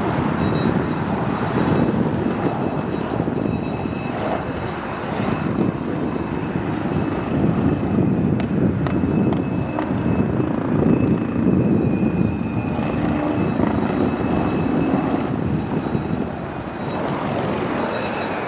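Agusta A109 helicopter flying a display pass overhead: a steady rumble of rotor and turbine engines with a faint high turbine whine, swelling and easing a little as it manoeuvres.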